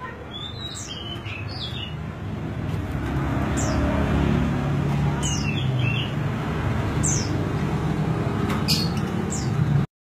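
Large niltava giving repeated short, high, falling call notes every second or two, with a few lower chirps, over a steady low rumble of background noise that grows louder partway through.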